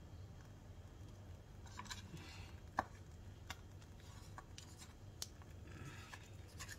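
Faint rustling and a few light ticks from a plastic piping bag and a paper cupcake case being handled while meringue is piped into the case.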